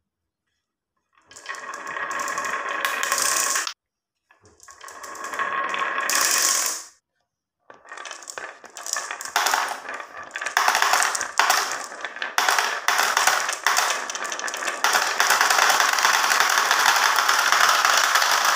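Marbles rolling down the winding grooves of a HABA wooden marble-run slope. Two short runs build up and stop abruptly in the first seven seconds. Then a steady stream of many marbles rattles and clicks along the wood and against each other, growing louder and denser.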